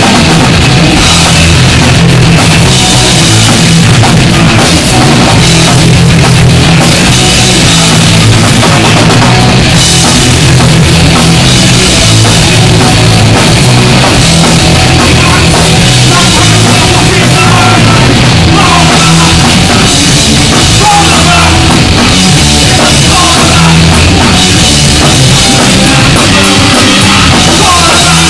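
Punk band playing live and loud: distorted electric guitar, bass guitar and drum kit, with a voice singing at the microphone near the end.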